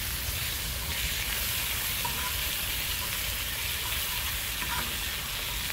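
Pork belly and neck slices sizzling on a cast-iron cauldron-lid grill (sotttukkeong), a steady frying hiss that strengthens slightly about a second in, over a low rumble.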